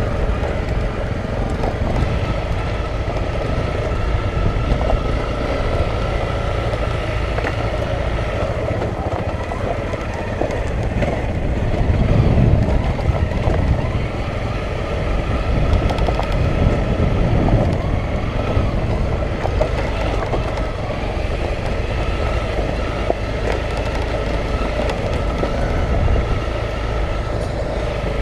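Single-cylinder dual-sport motorcycle engine running at low speed over a rough, rocky dirt track, with a steady low rumble. It swells louder briefly about twelve seconds in.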